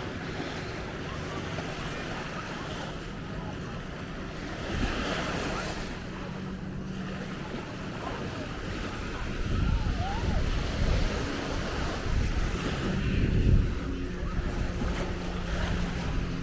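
Ocean surf washing on a beach, with a faint steady low hum underneath. In the second half, wind buffets the microphone in strong low gusts.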